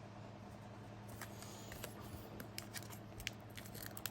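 Trading cards being handled and flipped through by hand: faint light clicks and paper rustles, growing more frequent toward the end.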